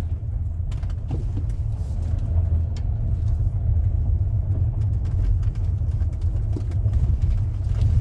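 Car running along a gravel forest track, heard from inside the cabin: a steady low rumble of engine and tyres with a few faint clicks.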